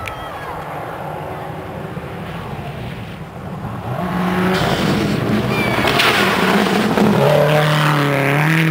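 Rally car on a gravel stage approaching at speed: its engine grows louder and rises in pitch from about four seconds in, drops in pitch once around seven seconds, and runs loud at full throttle as it passes close, with the hiss of dirt and gravel thrown up by the tyres.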